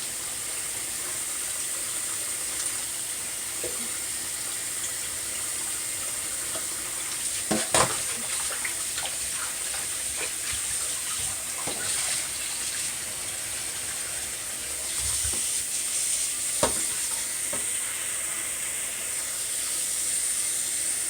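Tap water running steadily into a sink while cut chicken pieces are rinsed, with a few knocks, the loudest about 8 and 17 seconds in.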